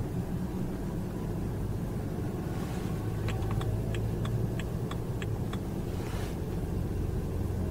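Car cabin while driving: a steady low rumble of engine and road noise, with a quick run of light clicks about halfway through.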